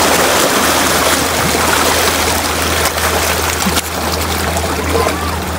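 Fast-flowing canal water rushing and splashing around a man ducking under at the brick bank: a loud, steady churning.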